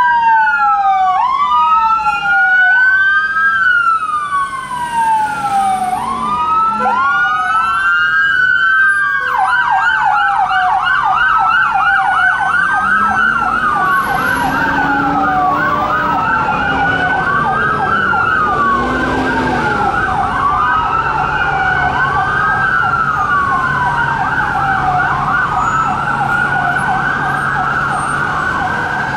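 Police vans' wail sirens. One or two sirens rise quickly and fall slowly, about every one and a half seconds. From about nine seconds in, several sirens from the convoy overlap out of step.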